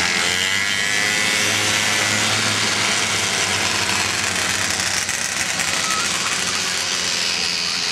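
A pack of racing snowmobiles passing at speed under throttle. Their engine pitches sweep up and down as the first machines go by in the opening seconds, then merge into a steady, dense engine noise as the rest of the field follows.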